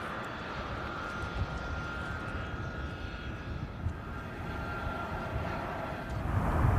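Jet aircraft engines running, a steady high whine over a low rumble that grows louder near the end as the aircraft comes closer.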